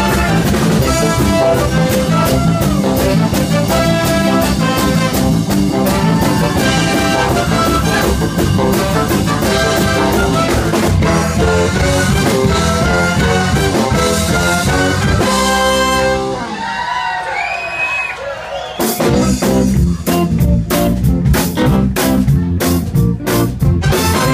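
Live blues-rock band playing, with a brass section of trumpets and saxophones over drum kit, bass and electric guitar. About two-thirds through the low end drops out for a short break, then the full band comes back in.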